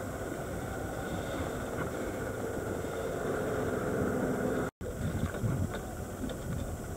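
Dive boat's engine idling steadily, with a brief gap about two-thirds of the way through.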